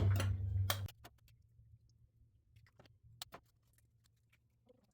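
Light clicks and taps of kitchenware while eggs are separated: a few faint ones, with one sharper click about three seconds in. A low hum stops suddenly about a second in.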